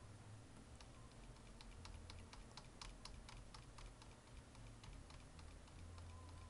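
Faint, quick clicking of computer keys, several clicks a second, thinning out after about four seconds.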